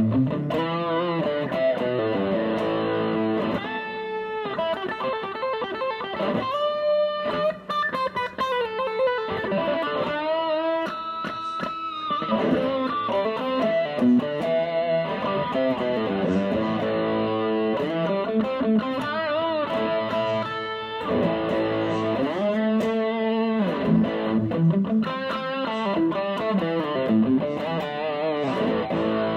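Electric guitar played through a Boss OS-2 Overdrive/Distortion pedal: sustained, driven single-note lines with frequent string bends gliding up and back down in pitch.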